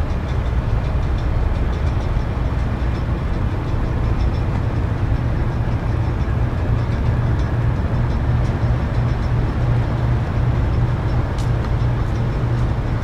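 Steady low rumble of the training support ship Kurobe's diesel engines as the ship moves slowly past close by, with an even wash of noise over it.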